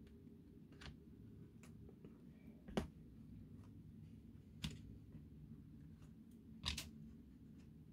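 Near silence with a few faint, short taps and clicks, about two seconds apart and the one near three seconds in the loudest, from craft materials being handled on a work table.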